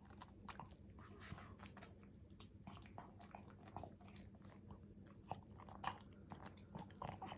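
Pug eating soft minced food from a bowl and off chopsticks: faint wet chewing and mouth-smacking clicks, a few sharper ones in the last couple of seconds.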